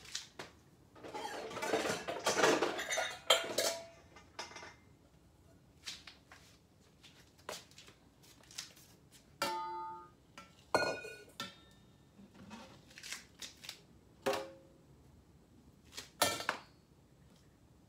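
Stainless steel bowls and kitchen utensils knocking and clinking on the counter, a dozen or so separate clanks, several with a brief metallic ring. A couple of seconds of rushing noise comes about a second in.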